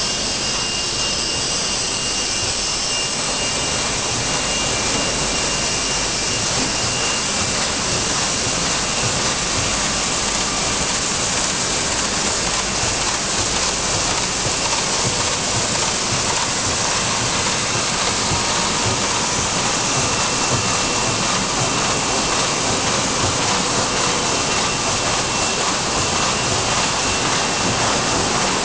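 1988 Lemo Intermat 1350 ST M2 bag-making machine running along with its edge-trim vacuum suction: a steady, loud rushing hiss with a faint high whistle.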